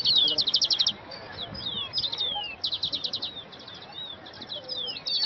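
Birds singing: rapid high trills of quick repeated notes, about ten a second, alternating with short whistled notes that slide downward in pitch.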